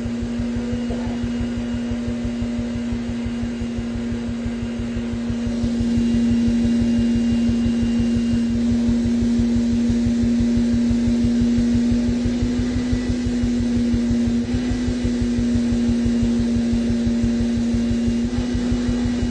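Force/2 cellulose insulation blowing machine running with just the air on, blowing through the hose as it is knifed down into densely packed cellulose in a wall cavity. A steady hum over a fast, even low pulsing, getting louder about five or six seconds in.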